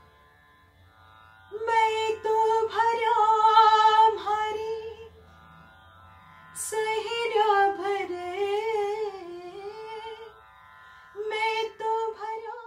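A woman singing a folk song about water in three ornamented phrases, her voice gliding and wavering between notes, over a steady drone from the sitar's ringing strings. Only the faint drone is heard for the first second and a half before she starts.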